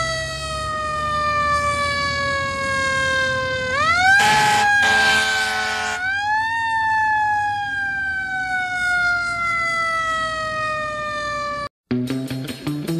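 Fire engine siren wailing: it slowly winds down, winds back up about four seconds in with a harsh horn blast over it, then slides slowly down again. It cuts off abruptly near the end and guitar music starts.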